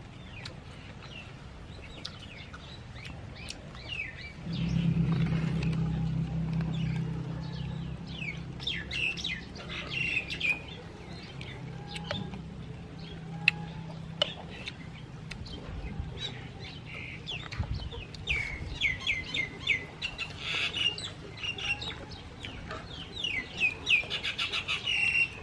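Small birds chirping over and over, with short high chirps that fall quickly in pitch. A low steady drone comes in about four seconds in, is loudest at first, and fades out around the middle. There is one sharp click about halfway through.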